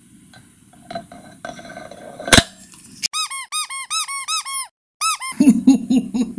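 An MXUS hub motor's stator, being lowered into its magnet ring, is pulled in by the magnets and seats with one sharp, loud clack about two seconds in, after a few faint handling clicks. A rapid run of high squeaks that rise and fall, about five a second, follows. After a brief cut comes a lower-pitched run of rhythmic pulses in the same pattern.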